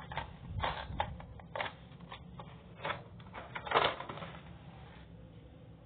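Irregular clicks, taps and rustles of small makeup items being handled and rummaged through, loudest a little under four seconds in.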